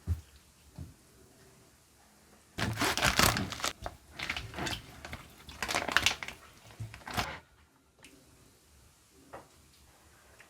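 Bursts of crinkling and crackling with a few sharp clicks, loudest in a stretch of about five seconds in the middle.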